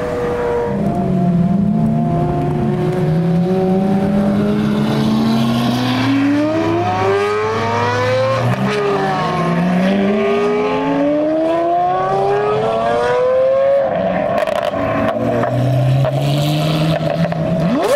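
Lamborghini Aventador V12 engines accelerating hard, several cars in turn, the exhaust note climbing in pitch through the revs and dropping back at each upshift.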